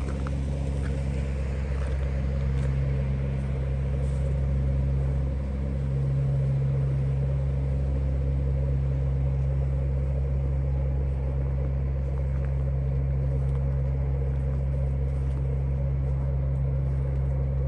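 A steady low engine hum that holds at an even pitch, with a brief dip about five and a half seconds in.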